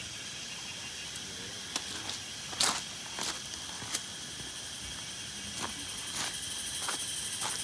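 A steady high-pitched insect chorus, with footsteps crunching on gravel, a step roughly every two-thirds of a second from about two seconds in.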